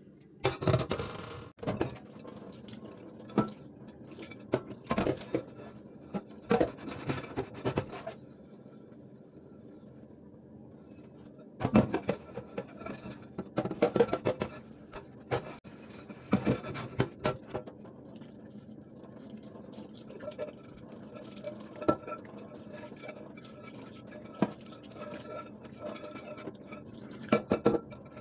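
Tap water running and splashing into a stainless steel sink while dishes are washed by hand, a glass bowl and a glass microwave turntable plate rinsed under the stream. Clinks and knocks of the dishes come in several bunches.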